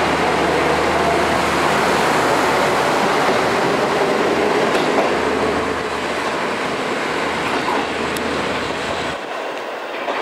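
KiHa 54 diesel railcar pulling away from a station platform: its diesel engine is running under load and its wheels are rolling on the rails, with the sound gradually fading as the car moves off. The low engine hum drops out about nine seconds in.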